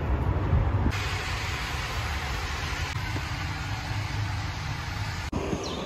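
Steady low outdoor rumble with an even hiss over it, broken briefly about five seconds in.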